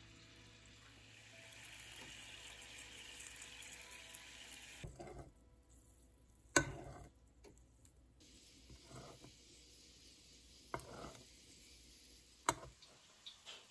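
Carrots sizzling gently in oil in a frying pan as a slotted spoon turns them. About five seconds in the sizzle drops away, and a metal spoon clicks and scrapes against the pan a few times as hot oil is spooned over the carrots.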